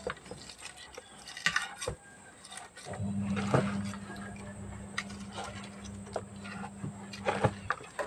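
Hands packing fish and chopped herbs into a bamboo tube: scattered rustles and soft knocks. A steady low hum comes in about three seconds in and stops near the end.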